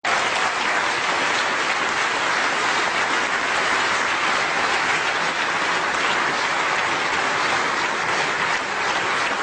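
A large studio audience applauding steadily, a dense even patter of many hands clapping.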